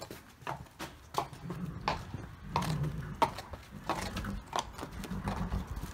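Horse's hooves clip-clopping on brick paving as it is led at a walk: a steady series of sharp hoof strikes, roughly two a second.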